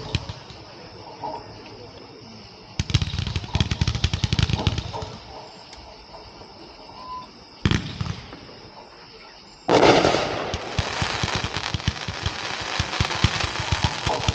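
160-shot zipper cake, a consumer firework, firing: a few scattered pops and one sharp crack first, then about ten seconds in a sudden loud start of shots fired in very rapid succession.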